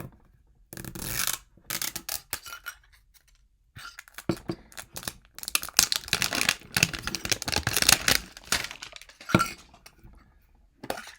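A Pokémon TCG Quick Ball collector's tin being unwrapped and opened. Plastic wrapping tears and crinkles in irregular bursts, with scrapes and light metallic clinks from the tin.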